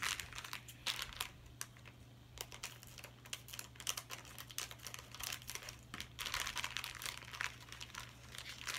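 Plastic Littlest Pet Shop blind-bag packet crinkling and crackling in irregular bursts as it is pulled open by hand, thickest about six to seven seconds in.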